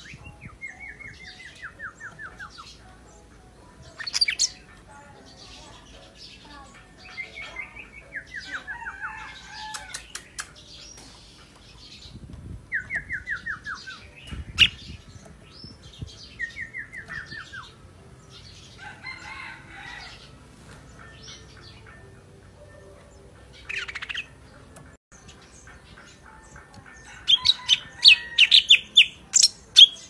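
Caged golden-fronted leafbird singing: a varied song of quick falling trills broken by sharp chirps. A run of loud, rapid sharp notes comes near the end.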